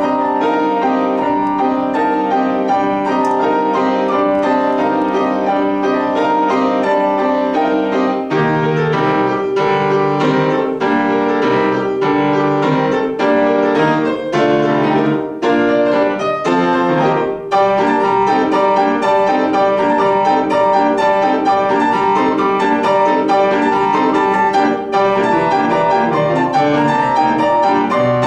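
Petrof grand piano played solo: a steady flow of notes over a moving bass line, with a few separately struck chords about halfway through.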